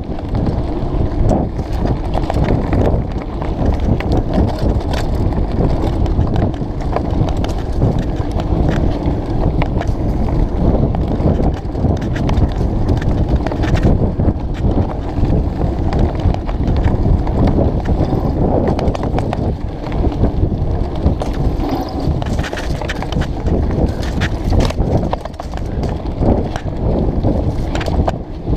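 Mountain bike rattling over rough singletrack, a dense, continuous run of knocks and clatter.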